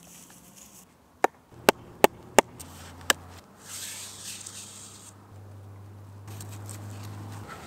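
Five sharp knocks on a birch stick over a wooden stump, then a block of wax rubbed along a cord with a dry, rasping hiss.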